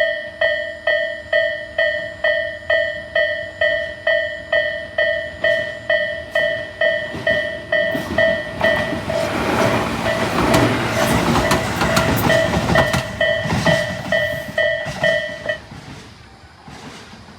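Japanese level-crossing warning bell, the electronic Isesaki-type tone, ringing in a steady repeating ding. A train rolls over the crossing through the middle, wheels clattering on the rails, and the bell stops about two seconds before the end while the train noise fades.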